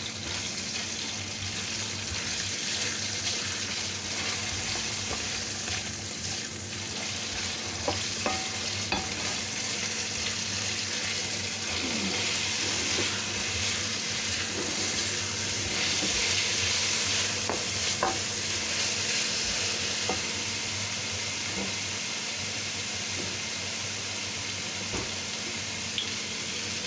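Chicken pieces frying in oil in a pan: a steady sizzle, with scattered clicks and knocks against the pan.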